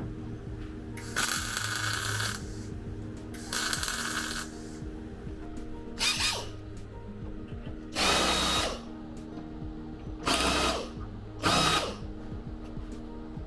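A power tool run in six short bursts, each about half a second to a second long, over background music with steady tones.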